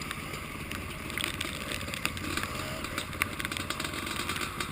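Dirt bike engine running steadily, with many sharp ticks scattered over it.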